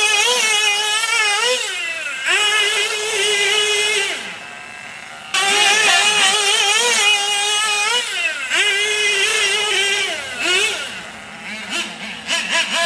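Team Associated SC8 short-course truck's nitro engine running at high revs, its pitch rising and falling as the throttle is worked. The sound drops away about four seconds in and comes back abruptly just after five seconds, with a scatter of short clicks near the end.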